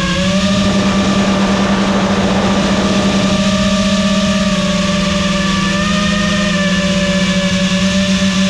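Small FPV quadcopter's electric motors and propellers buzzing, heard from the camera mounted on the drone. It is one steady pitched buzz that dips and rises slightly with the throttle, with a rush of air about half a second to three seconds in.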